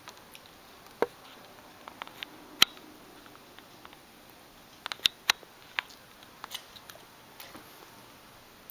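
Scattered small sharp clicks and taps, irregular and a second or more apart, with a cluster of three about five seconds in, over a faint quiet room hum.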